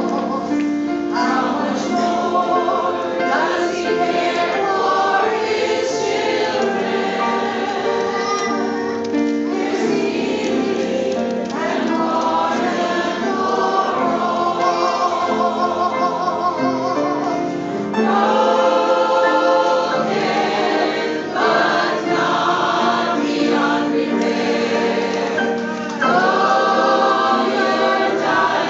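Large combined choir singing a gospel song with accompaniment. It gets louder about 18 seconds in and again near the end.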